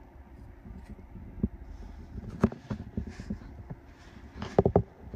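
Handling noise from the phone camera: a low rumble with several knocks and bumps, the loudest a quick cluster of three near the end, and some soft fabric rustling in between.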